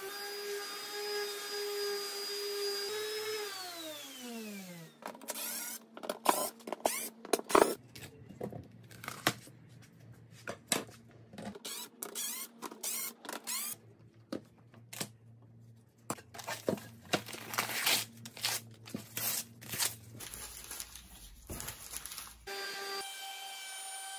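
A random orbital sander runs steadily on a wooden board, is switched off about three seconds in, and winds down with a falling pitch. Then comes a long stretch of irregular short bursts, knocks and clicks from a cordless drill working the screws in the board's end strips. The sander starts up again near the end.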